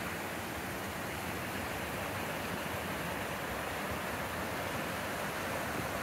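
Running water of a mountain brook: a steady, even rush with no breaks.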